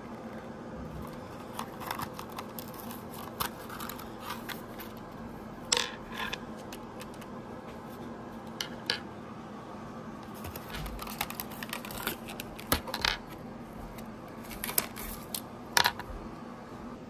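Hands handling small plastic hair-tie charms and cardboard packaging cards: scattered sharp clicks, taps and short rustles, a few louder clicks standing out, over a steady low hum.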